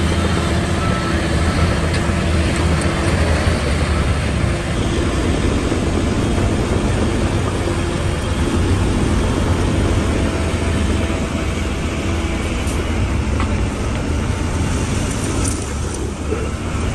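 Heavy diesel earthmoving machine engine running steadily, with a deep, even engine note.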